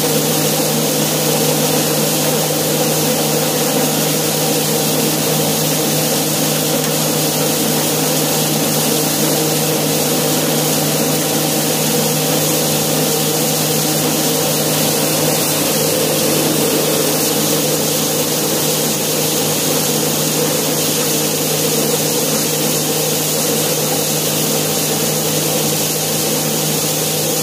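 Yanmar RHS40DL rice husker running steadily: a constant hum under an even hiss.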